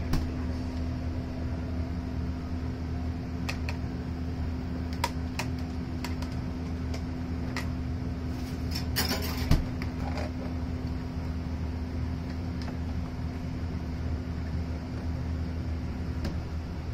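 Steady hum of kitchen equipment, with scattered light clicks and knocks of kitchen work and a short clatter about nine seconds in.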